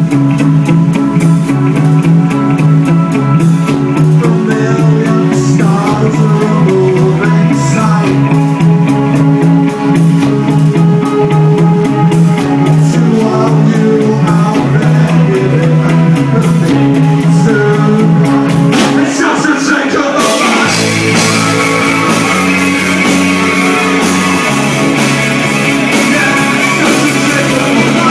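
Live rock band playing: electric guitar over a drum kit, with a lead singer at the microphone, built on a repeating low riff. About twenty seconds in, the song changes to a new, fuller section.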